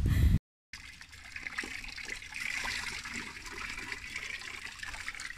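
Running water, a steady trickling rush, starting just after a brief dropout near the start.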